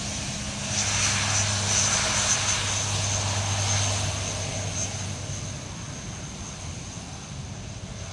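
RAF C-130J Hercules turboprop transport, its four Rolls-Royce AE 2100 turboprops and six-blade propellers running as it rolls along the runway. A steady low propeller drone sits under a high turbine whine. It swells about a second in and then fades as the aircraft moves away.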